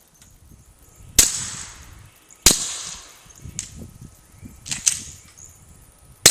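Glock 19 9mm pistol firing 147-grain subsonic rounds through an AAC Tyrant 9 suppressor, shot dry, heard from downrange of the muzzle. There are three sharp suppressed reports, the first two about a second apart. A longer gap with a few lighter clicks comes before the third, where a bad round fails to fire.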